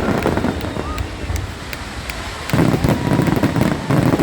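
Fireworks going off: a steady crackle of small pops, with two heavy bursts of booming about two and a half seconds in and again near the end.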